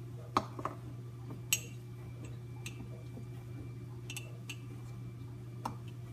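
A few light clinks and taps of a kitchen utensil against a mug while preparing overnight oats. The strikes are scattered and sharp, the loudest two in the first second and a half, over a steady low hum.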